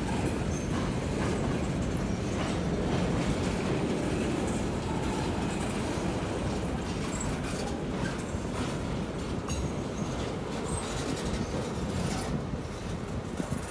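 Freight train of empty centerbeam lumber flatcars rolling past a grade crossing: a steady deep rumble with wheel clatter, heard from inside a car. The rumble eases slightly near the end.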